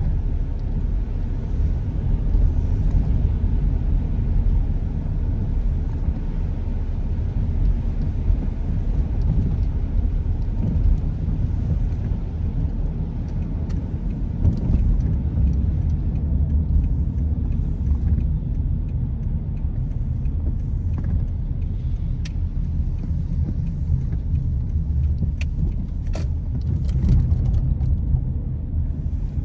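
Car driving along, heard as a steady low road and engine rumble, with a few faint clicks in the second half.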